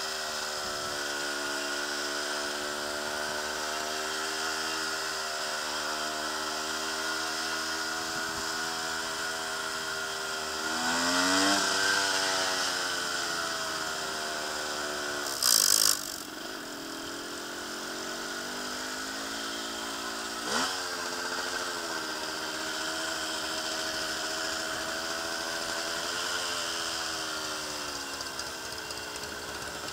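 1973 Suzuki TC 125's two-stroke single-cylinder engine running at low speed, its pitch rising and falling as the throttle is worked. It revs up louder about a third of the way in and drops sharply a couple of times after, with a brief loud burst of noise about halfway through.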